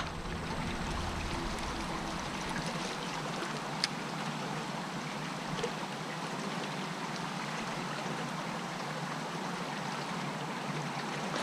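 Steady rushing of flowing water, with a single sharp click about four seconds in.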